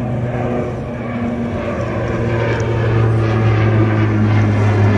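De Havilland Canada Dash 8-400 turboprop airliner climbing out after takeoff, its twin propellers giving a steady low drone that grows louder about halfway through.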